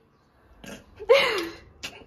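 A person's short vocal exclamation about a second in, one drawn-out sound falling in pitch, followed by a sharp click near the end.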